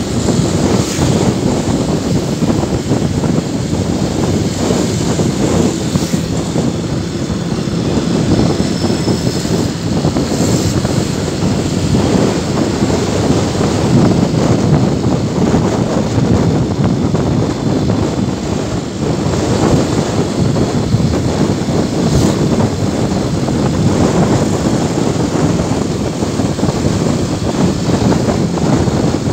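Steady rush of wind buffeting the microphone, mixed with engine and road noise from a moving motorcycle.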